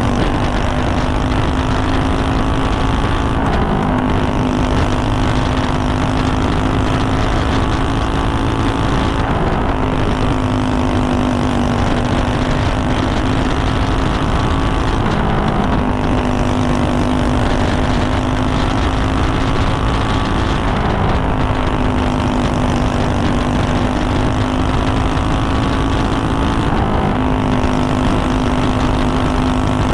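Racing kart's single-cylinder engine running hard at high revs around a dirt oval, its pitch holding steady on the straights and dipping briefly about every six seconds as the kart goes through each turn, over a steady rushing noise.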